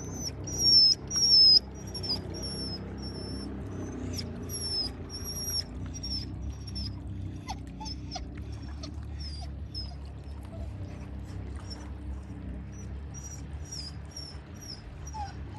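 Short, high-pitched chirping calls from a small animal, repeated about twice a second without a break, over a steady low rumble. There is a brief loud burst about a second in.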